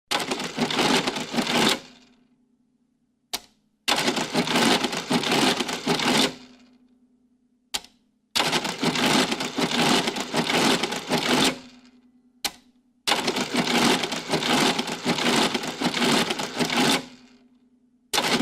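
Adding machine cycling: four runs of dense mechanical clatter, each a couple of seconds long, with a single sharp click before each of the last three runs and a low steady hum lingering briefly after each.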